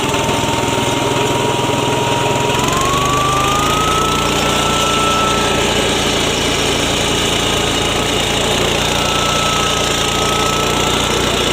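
Small single-cylinder petrol engine (Yasuka MGX 210, about 7 HP) running a mini rice mill and grinder at speed, a loud steady drone. A high whine over it rises in pitch about two and a half seconds in, then holds steady.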